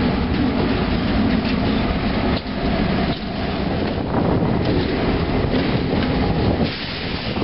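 Iowa Interstate diesel locomotives pulling a freight train past at close range, their engines running loud and steady.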